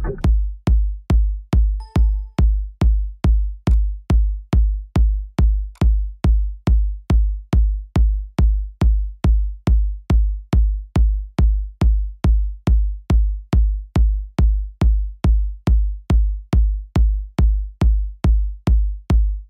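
Electronic dance music intro: a lone drum-machine kick drum with deep bass beating steadily, about two beats a second, with no vocals.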